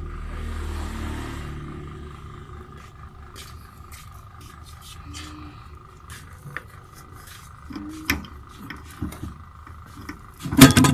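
Metal parts of a greased CV joint being handled and seated on a car's drive shaft: scattered light metallic clicks and knocks, then a loud clank near the end. A low rumble fades away over the first two seconds.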